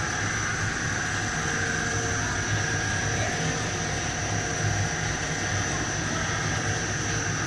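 Single-screw snack pellet extruder running steadily: an even machine drone with a low hum and a steady high whine over it.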